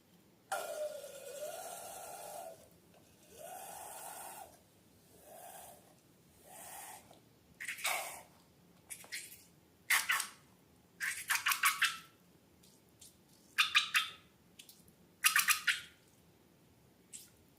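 Wet squishing and pouring sounds of slime or liquid being worked out of balloons, in separate bursts of a second or two, later turning into clusters of quick squelching clicks.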